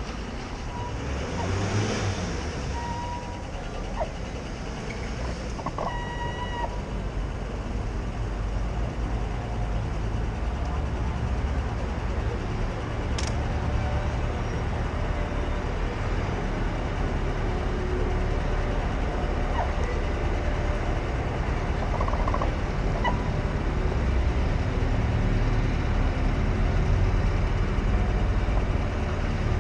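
City street traffic ambience: a steady low rumble of passing vehicles, with a few brief high-pitched tones in the first several seconds and a single sharp click about thirteen seconds in.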